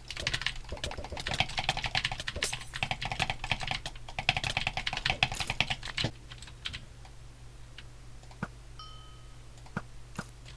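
Clicking like typing on a computer keyboard: a fast, dense run of key clicks for about six seconds, then only scattered single clicks. A short beep sounds about three-quarters of the way in, over a steady low hum.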